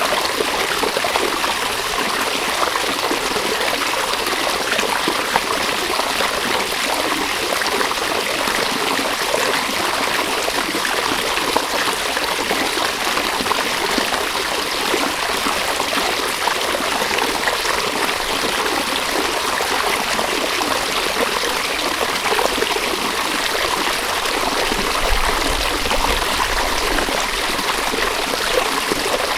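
River water flowing steadily: an even, unbroken rush of water.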